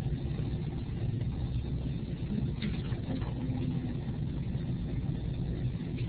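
Steady low background rumble with no speech, and a faint click about two and a half seconds in.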